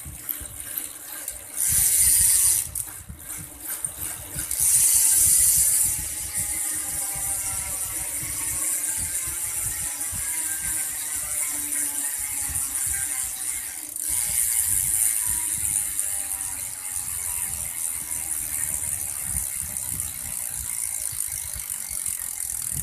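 BMX rear cassette hub (El Matador) ratcheting as the wheel is pedaled, its freewheel pawls clicking in a fast steady buzz that slowly eases off as the wheel coasts; it is a little noisy because the pawl spring has been modified. Two louder spells of pedaling come in the first few seconds.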